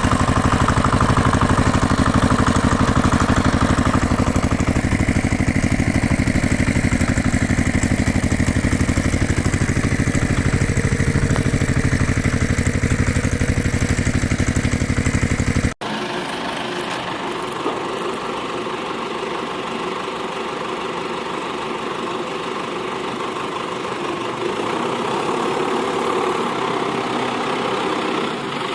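A motor running steadily, with a fast even rhythm, until an abrupt cut a little over halfway through. After the cut a quieter, thinner running sound continues.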